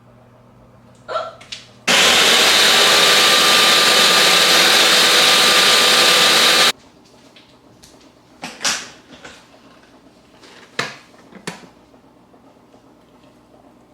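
A small electric appliance motor runs loud and steady for about five seconds, switched on and off abruptly. A few short clatters and knocks follow.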